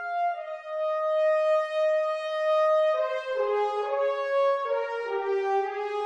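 Sampled French horn ensemble from an orchestral sample library playing long legato notes: one note held for about three seconds, then a line of notes moving mostly downward, each sliding into the next.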